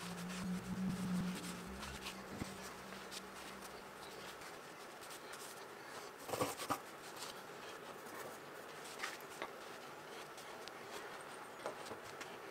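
Copper boiler parts being set down and shuffled on a paper-towel-covered workbench: light clacks and taps, with a cluster of knocks about six seconds in the loudest. A low steady hum runs through the first four seconds or so.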